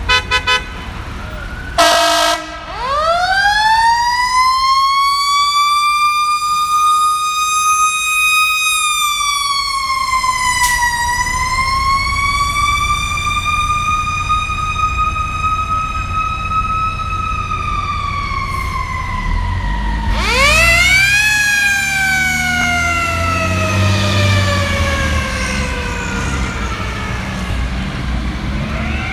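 Fire truck sirens responding: a few short horn blasts, then a siren winding up to a high wail that dips and rises again and slowly falls away. It winds up once more about twenty seconds in over the low rumble of the trucks' engines.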